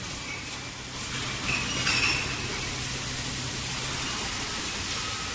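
Glass wine bottles clinking against each other as they are handled, a few brief clinks about two seconds in, over a steady background hiss and a low hum.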